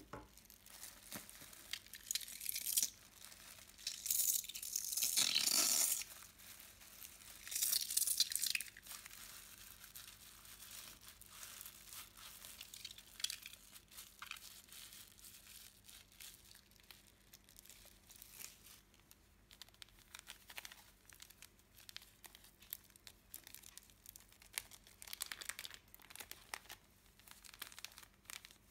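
Crackling and crinkling as slime ingredients are handled over a glass bowl: white glue squeezed out and a white foamy mass stirred by hand, with a plastic bag of glitter near the end. Three louder hissing, rustling bursts come in the first nine seconds, then soft crackles and clicks.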